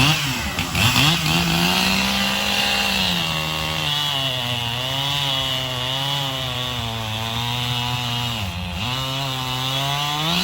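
Echo CS-7310P two-stroke chainsaw with a 24-inch bar, revved up and then cutting through a log. Its pitch drops and wavers under load, with a brief dip near the end.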